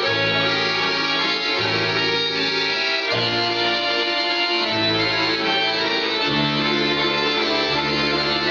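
Instrumental passage of a Russian folk-choir song, led by accordion, over a bass line that changes note about every one and a half seconds.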